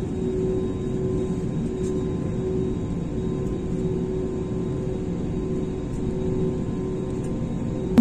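Jet airliner cabin noise heard at a window seat while the plane taxis on the ground: the engines run at low power with an even, steady rumble and a steady hum.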